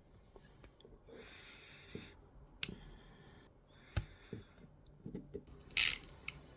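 Knife scraping and cutting away support material from a 3D-printed plastic part, with scattered sharp plastic clicks and a louder snap near the end.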